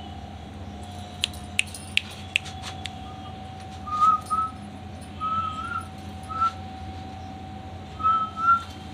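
A person whistling a series of short, wavering chirps, several in pairs, over a steady hum; four sharp clicks come before the whistles.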